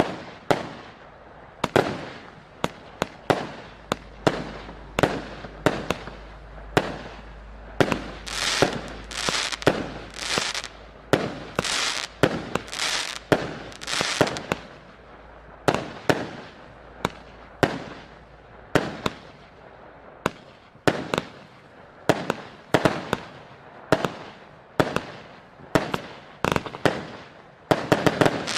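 Mighty Hero 37-shot firework cake firing in quick succession: a string of sharp bangs, about one or two a second. Some of the bursts, mostly near the middle, trail a longer crackling hiss.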